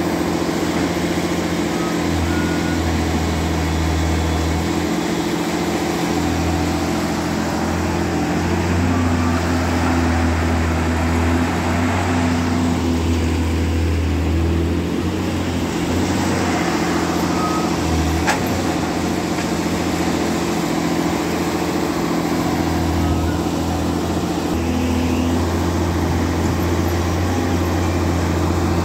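Tata Hitachi EX200 excavator's diesel engine running steadily under hydraulic load as the boom and bucket dig through wet mud, its low hum swelling and easing every few seconds. A single sharp click about two-thirds of the way through.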